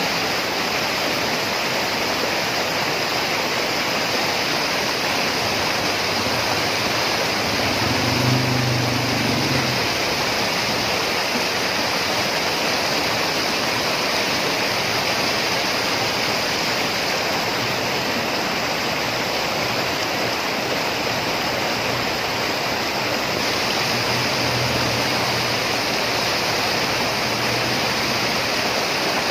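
Mountain stream rushing over boulders: a steady, unbroken white-water rush.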